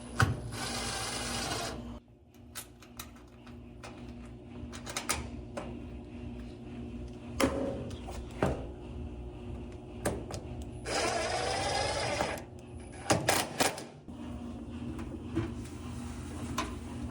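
Power drill driving screws back into the dryer's panel: two short whirring runs of about a second and a half each, the second about ten seconds after the first, with scattered clicks and knocks of handling in between.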